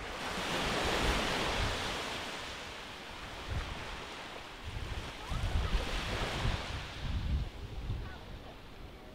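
Small waves breaking and washing up a sandy beach, the surf swelling twice. Gusts of wind buffet the microphone.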